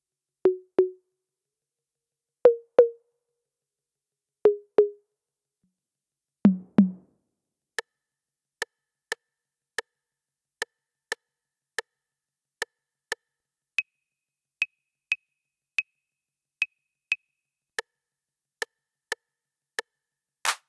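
Yocto TR-808 clone analog drum machine sounding its voices one by one: pairs of short pitched drum hits, a lower pair about six and a half seconds in, then a steady run of short, high, clicky hits about two a second. A louder, sharper hit lands at the very end.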